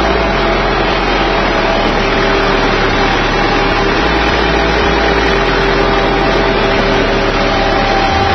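Massey Ferguson tractor engine running loud and steady while pulling a plough through the soil, heard from on board the tractor.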